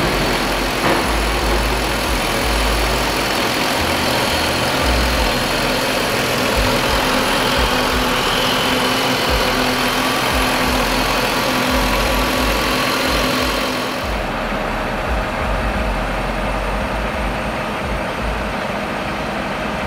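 1997 Ford Mustang GT's 4.6-litre V8 idling steadily, heard close up in the open engine bay. About fourteen seconds in the sound turns duller and a little quieter.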